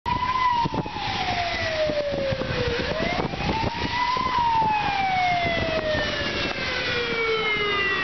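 Ambulance siren on a slow wail: the pitch falls, sweeps back up about three seconds in, then falls slowly again.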